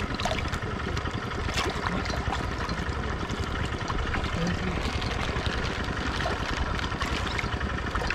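Water splashing and sloshing as large fish feed at the surface and dry food pellets spill into the water, with a few sharp splashes over a steady low rumble.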